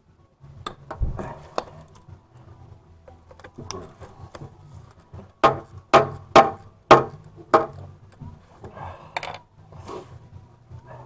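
Hand tools working on a bolt in a car's engine bay: scattered light clicks and clatter, then five sharp metal knocks about half a second apart near the middle, followed by lighter rattling and a short scrape.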